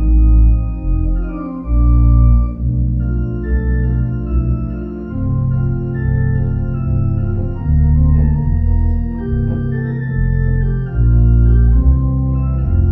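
Church organ playing a postlude: sustained chords over deep bass pedal notes that change every second or so.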